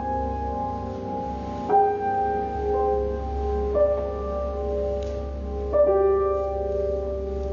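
Piano played slowly, one note at a time, each note left ringing into the next, with new notes about every one to two seconds. Underneath runs a steady low drone from a didgeridoo.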